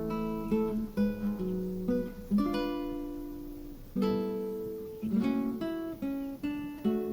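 Acoustic guitar music: plucked notes and chords, each ringing out and fading before the next.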